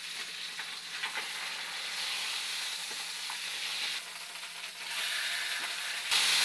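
Food sizzling and frying in a pan on the stove, a steady hiss that gets louder about a second before the end.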